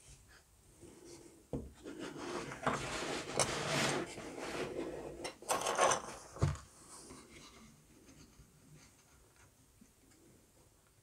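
Laser-cut plywood frames of a model ship hull rubbing and scraping as hands work them into place, in two spells of scratchy rubbing. A sharp knock comes about a second and a half in, and another a little after the middle.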